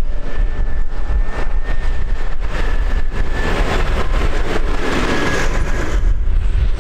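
A tractor drives past close by, its engine and tyres building to their loudest about five seconds in and then falling away, with a faint steady whine above. Wind buffets the microphone throughout.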